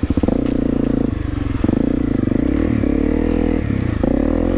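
Honda CRF250L's single-cylinder four-stroke engine, its revs rising and falling several times as the throttle is opened and closed.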